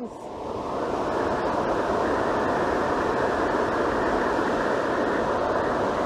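Waterfall cascade rushing and splashing onto rocks, a steady even roar that swells up over the first second and then holds.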